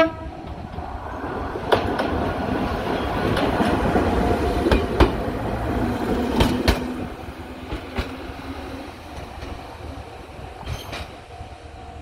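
Gakunan Railway 7000-series electric railcar giving a short horn blast, then rumbling past over a steel girder bridge with its wheels clacking over the rail joints. The sound fades as the train pulls away.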